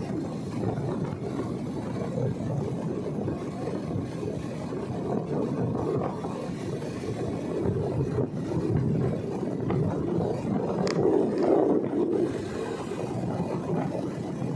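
Steady rumble of a moving motorcycle, with wind and engine noise on a handheld phone's microphone.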